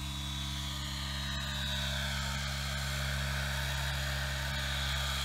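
Align T-Rex 700E electric RC helicopter flying low: a steady rotor hum under a high electric-motor whine that sags and then comes back up in pitch.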